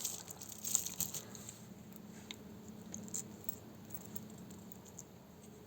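Faint light clicks and handling noise as a small washer and screw are fitted by hand, a few ticks near the start and a couple more later, over a low steady hum.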